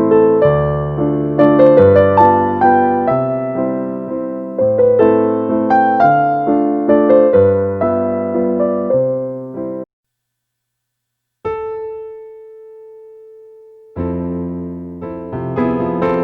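Background piano music: a gentle melody of struck notes, which cuts out abruptly a little before the middle. After about a second and a half of silence one held note rings and fades, and the piano resumes near the end.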